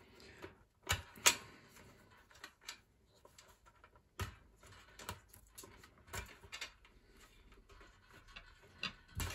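Irregular small clicks and taps as a plastic rocker switch and its push-on wire connectors are handled in the fingers, with sharper clicks about a second in and near the end.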